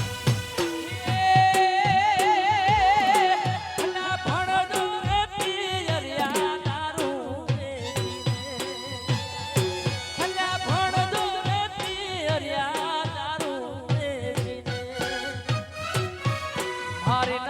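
Gujarati desi raas folk music: a steady, evenly spaced drum beat under a melody line with a wavering vibrato.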